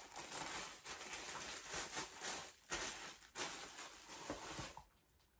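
Close rustling and handling noise with small scrapes and knocks, as items are moved about right by the microphone. It stops a little before the end.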